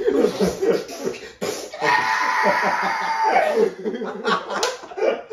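Two young men laughing hard together, loud and continuous, with a sudden burst about one and a half seconds in.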